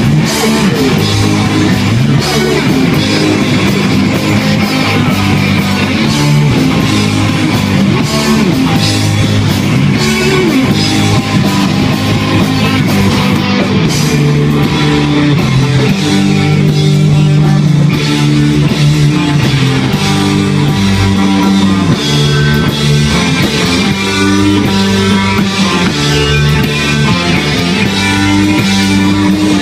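Live rock band playing loudly: electric guitars, bass guitar and drum kit together.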